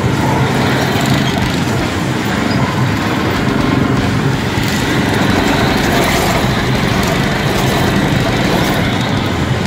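Engine of a small off-road vehicle running under load over a rough dirt trail, heard from on board.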